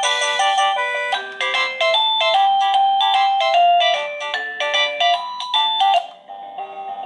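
Alierkin wireless doorbell's plug-in chime unit playing one of its built-in electronic melody ringtones, a quick tune of bright notes. About six seconds in the tune stops and the next ringtone begins.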